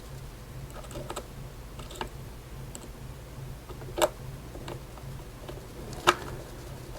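A few light, scattered clicks as a small screw is put back into a plastic bike alarm housing and driven home, over a steady low hum.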